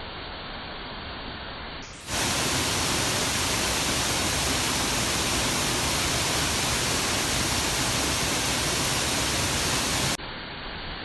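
Artificial waterfall's falling water, a steady rushing. About two seconds in it jumps abruptly much louder and brighter, and about ten seconds in it drops back just as suddenly to the softer, duller rush.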